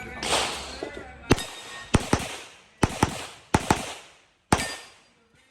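Rapid pistol fire from a 9mm Glock 34 Gen 5: about seven sharp shots, some in quick pairs, each followed by a short echoing tail.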